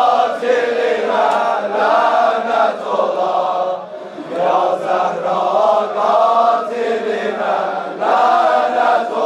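Voices chanting together in a Shia mourning lament (nauha) for Fatima al-Zahra. The chant runs on continuously, easing briefly about four seconds in before rising again.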